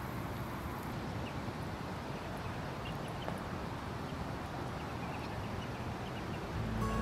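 Steady outdoor background noise, a low even rushing, with a few faint short high chirps scattered through it. Music starts to swell in near the end.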